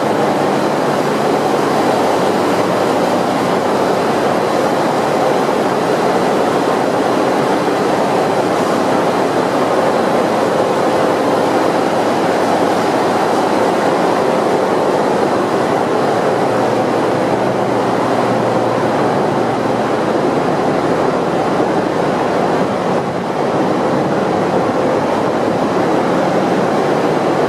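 Loud, steady machinery noise of a container ship's engine room in operation: a dense, unbroken din of running engines, pumps and blowers, with a few faint steady hums within it.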